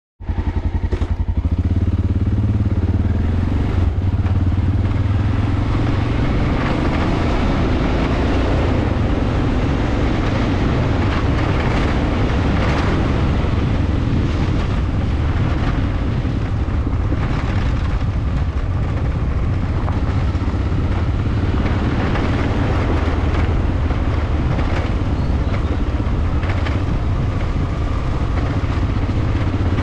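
Honda Dominator NX650's single-cylinder four-stroke engine running steadily while riding down a gravel road, with the crunch and rush of tyres on loose gravel.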